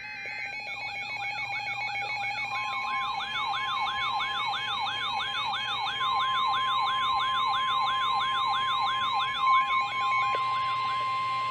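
Electronic weather alert tones sounding together: a siren-like rising sweep repeating about three times a second over steady and stepping beeps. About two and a half seconds in, the steady NOAA Weather Radio warning alarm tone joins them, signalling that a warning message follows.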